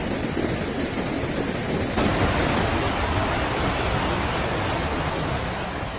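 Muddy flash-flood water rushing through a street, a steady churning noise. About two seconds in, the noise shifts abruptly to a brighter hiss.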